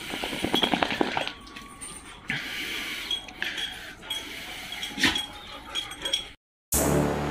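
Dogs moving about on a tiled floor with clicking and clinking, a quick run of clicks about half a second in and scattered clicks after. Near the end the sound cuts out briefly and electronic music starts.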